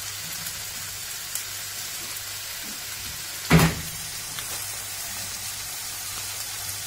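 Chopped peppers, aubergine and onion sizzling steadily in a frying pan, with a few spoonfuls of water just added. A little past halfway comes one short, loud knock.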